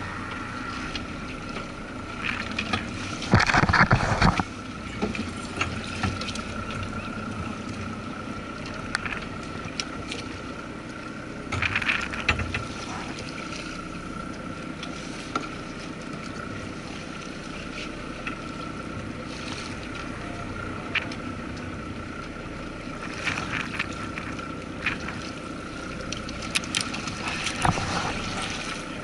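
Water lapping against a small boat's hull under a steady thin whine, broken by a few short bursts of fishing-reel cranking, the loudest about three seconds in, as the squid jig is worked and reeled up.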